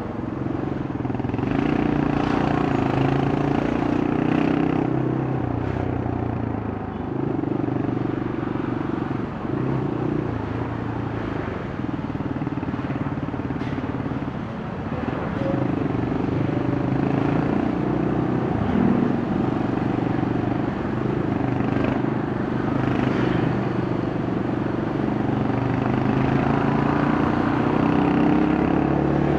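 Yamaha Scorpio single-cylinder four-stroke motorcycle engine and exhaust running on the road. Its pitch rises and drops in steps every few seconds as the rider works the throttle and gears, climbing again near the end, with road and traffic noise underneath.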